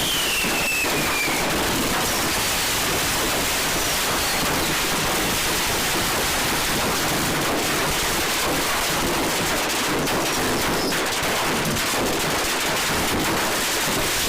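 Fireworks crackling nonstop, a dense rapid spatter of small pops over a steady hiss.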